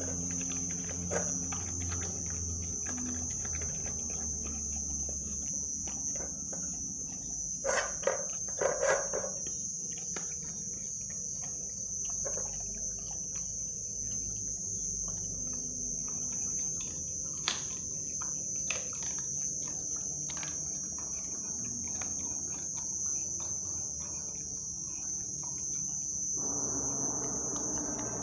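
A steady, high cricket trill, with scattered clicks and knocks from a pitbull puppy chewing raw meat and bone at its steel food bowl: a quick cluster of sharp clicks about eight to nine seconds in, and a denser scraping from the bowl near the end.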